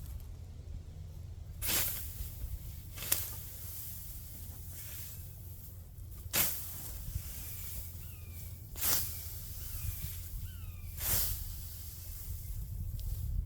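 Hand sickle swishing through standing wheat stalks: about six cutting strokes, each a short hiss, a couple of seconds apart.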